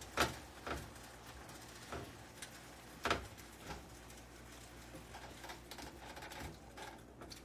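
A utensil stirring chicken and spices in a pan, giving irregular clicks and scrapes against the pan, the loudest near the start and about three seconds in.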